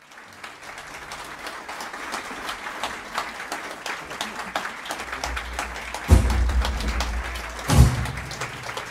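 Audience applauding with steady clapping. Two loud low thumps come about six seconds in and again just before eight seconds.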